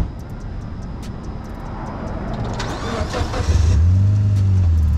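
A tuned Mitsubishi Lancer Evolution X's turbocharged 2.0-litre four-cylinder being started: a short crank about three seconds in, then the engine catches and settles into a steady, loud idle.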